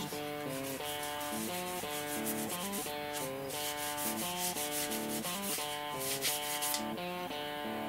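Cloth rag rubbing a finish onto a wooden part in quick, repeated scratchy wiping strokes, over background guitar music.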